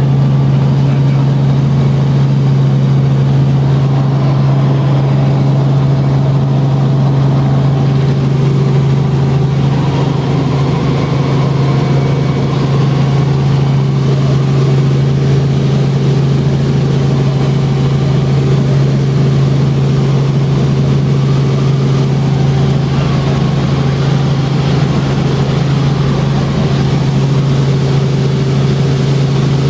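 Robinson R44 helicopter in cruise heard from inside the cabin: a loud, steady drone of engine and rotors that holds unchanged throughout.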